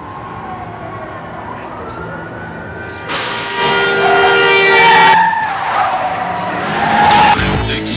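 A car's engine note gliding in pitch, then tyres screeching in a long, loud skid about three seconds in, with a second squeal and a sudden burst of noise near the end.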